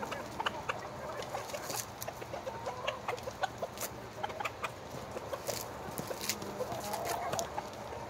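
A flock of chickens clucking softly while feeding, over frequent sharp clicks of beaks pecking kale off a wooden deck. A longer wavering call comes about seven seconds in.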